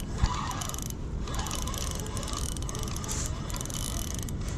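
Fishing reel clicking rapidly and steadily while a hooked carp is fought toward the bank, with a steady low rumble underneath and one sharp knock just after the start.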